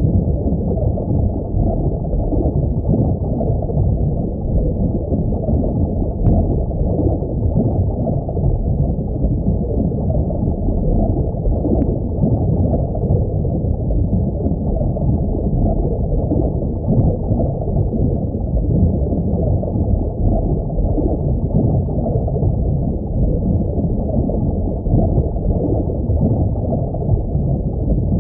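Underwater ambience sound effect: a steady, muffled low rumbling wash with nothing high in it, and a few faint ticks now and then.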